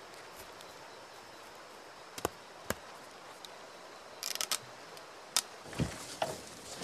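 Machete chopping into sapling wood: a few single sharp strokes, a quick cluster of three or four about four seconds in, then duller thumps near the end, over a steady low forest background.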